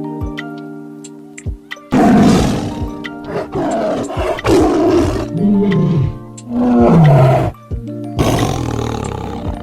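Big cat roaring several times in a row, loud and rough, from about two seconds in until near the end, over steady background music.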